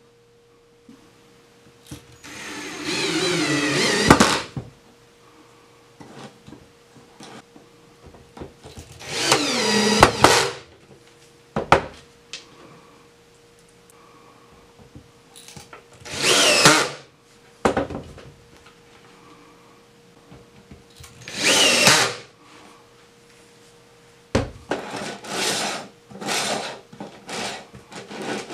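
Cordless drill driving screws into plywood, in four runs of a second or two each, fastening a steel lazy Susan bearing plate. Near the end come a string of short knocks and scrapes as the plate is handled.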